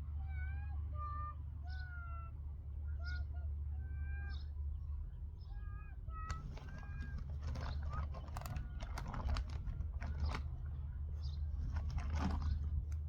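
A run of short, pitched animal calls for the first half, then rustling and clicking as a plastic tree watering bag is handled and fitted around a young tree's trunk, over a steady low hum.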